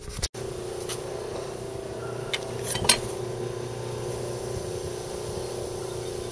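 A steady machine hum with a constant tone, starting abruptly just after the start, with a few light clicks about a second in and again near three seconds in.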